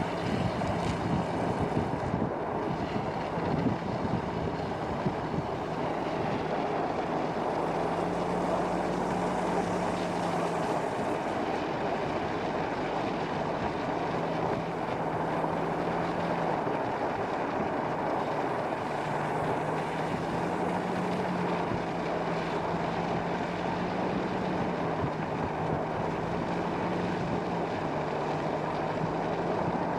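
A vehicle driving: steady road and tyre noise with a low engine hum that drops out and shifts a little in pitch now and then.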